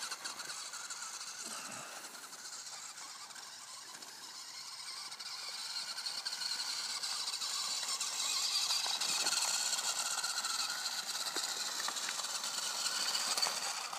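Small battery-powered electric drive motor and gears of a Tronico 1:16 metal-kit RC Fendt 939 tractor whining steadily as it drives, growing louder from about the middle.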